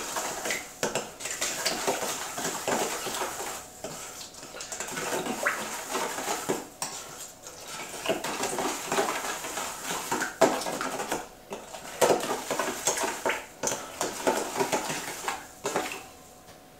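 A utensil stirring a marinade in a bowl, scraping and clinking irregularly against the bowl; it stops shortly before the end.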